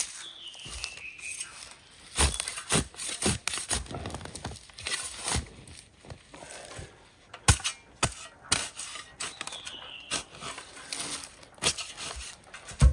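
Spade digging into soil matted with roots: about a dozen irregular chops and scrapes as the blade cuts in and roots tear. A bird whistles a falling note twice in the background.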